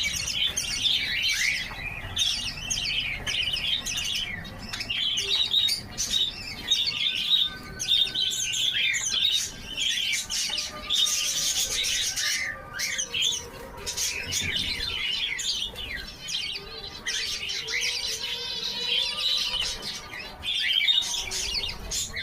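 A flock of small birds and chicks chirping and twittering continuously while they feed, many short overlapping calls.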